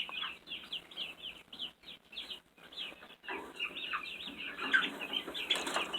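A brood of nearly three-week-old light Brahma and Ameraucana chicks peeping constantly, a stream of short, high, downward-sliding chirps. The peeping grows louder and busier from about three seconds in.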